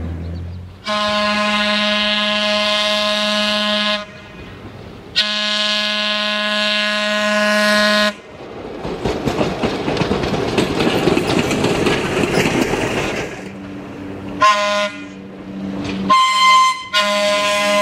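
Horn of a red Pacific Electric interurban trolley car sounding two long blasts, then the rumble of the car passing on the rails, then two short blasts and a long one starting near the end.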